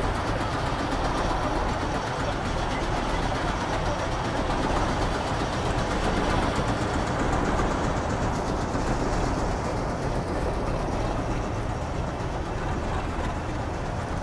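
Steady rushing noise from a heritage steam train standing at the station platform.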